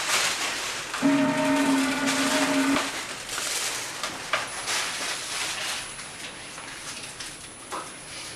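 Air-cushion packaging machine running: a steady rushing hiss with crackling of plastic film, and a steady hum that starts about a second in and stops about two seconds later.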